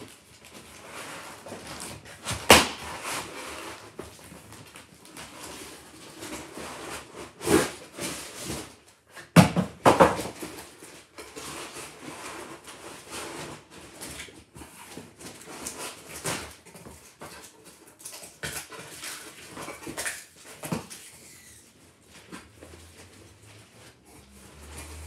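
Cardboard box and plastic wrapping rustling and scraping as a shield is worked out of its packaging, with a few sharp knocks, the loudest about two and a half seconds in and around ten seconds in.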